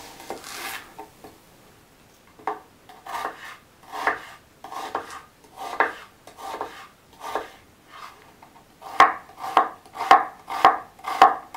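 Kitchen knife finely chopping an onion on a bamboo cutting board: single knocks of the blade on the board, spaced well apart at first, then coming faster and louder near the end.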